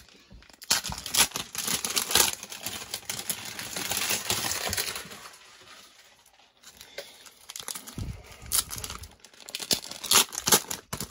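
Cellophane-wrapped trading card packs crinkling as they are handled and stacked, with sharp clicks and light taps as packs are set down; busiest in the first half, dropping off in the middle, then picking up again near the end.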